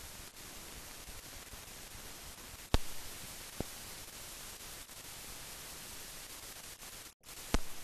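Steady hiss of an old film soundtrack with no recorded sound, broken by three sharp clicks, the loudest about three seconds in, and a brief dropout to silence just before the last click near the end.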